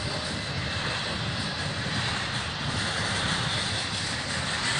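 BNSF intermodal freight train's flatcars, loaded with truck trailers, rolling past close by: a steady rumble of steel wheels on rail.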